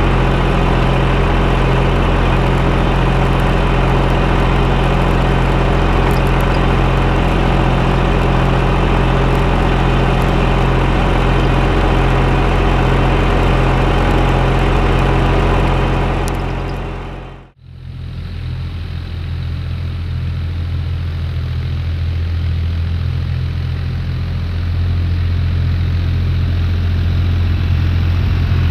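Tractor engine running steadily, working a plough. About two-thirds of the way through, the sound fades out briefly and comes back as a deeper, more muffled engine sound.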